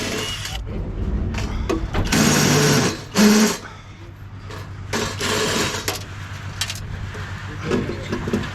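Short bursts of a small motor or machine whirring and rattling, about two seconds and again about five seconds in, over a steady low hum.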